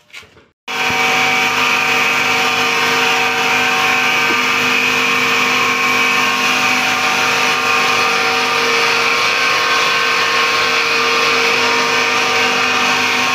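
FFC-45 disk mill running at full speed on a test run: a loud, steady whir with a high ringing tone over a rushing noise, cutting in suddenly under a second in and holding without change.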